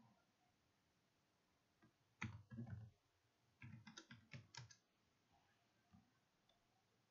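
Faint computer keyboard keystrokes: two quick runs of key presses as a password is typed, then one more single click about six seconds in.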